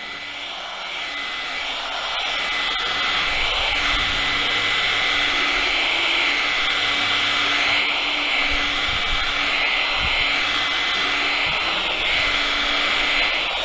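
Handheld electric sander-polisher running steadily with a high motor whine, its round pad held against a car's steel rear hatch, with scattered low knocks from the pad and handling. It grows louder over the first couple of seconds, and the whine dips briefly and recovers near the end.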